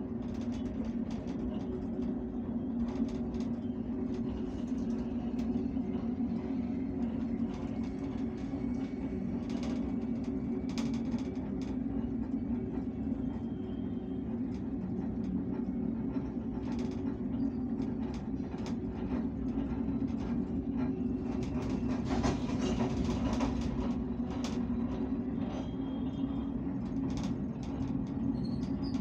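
Auto-rickshaw engine running steadily while underway, a constant drone with scattered clicks and rattles, and a louder stretch of road noise a little past the middle.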